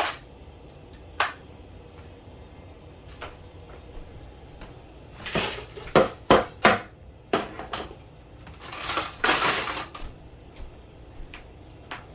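Kitchen clatter of pots and utensils: scattered sharp knocks and clinks, with a quick run of them about five to seven seconds in and a longer, noisier stretch of handling about nine seconds in.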